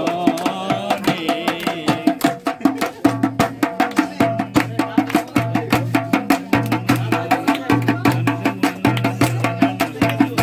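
Dhol, a rope-tensioned barrel drum, played in a fast, driving rhythm of many strokes a second, with its low bass head sounding from about three seconds in.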